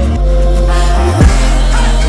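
Background music: an electronic track with heavy sustained bass and a drum hit about a second in.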